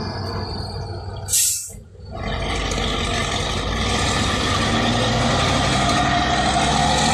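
Heavy logging truck's diesel engine running, with a short, loud hiss of air brakes about a second and a half in, followed by a brief dip before the engine noise returns.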